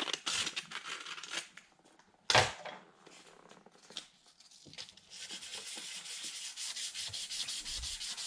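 Sandpaper rubbing on the painted body of a model Jeep Cherokee, wearing through the top coat for a faded patina finish. It starts with scattered strokes and a sharp knock about two seconds in, then settles into steady, rapid back-and-forth sanding.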